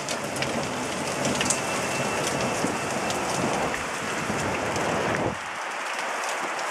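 Hailstones falling hard and pattering on surfaces in a dense stream of sharp hits, with a low rumble underneath that stops about five seconds in.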